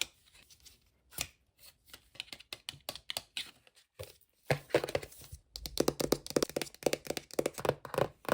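Cardboard and paper packaging of an Apple Watch box being opened by hand. Scattered taps and scratches, then from about halfway a rapid, louder run of crackling, tearing and tapping.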